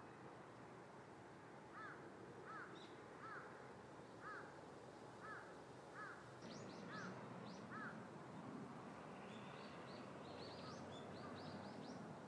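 Faint bird calls over steady low background noise: a run of about eight short, arching calls, roughly one a second, joined from about halfway by higher, quicker chirps that bunch together near the end.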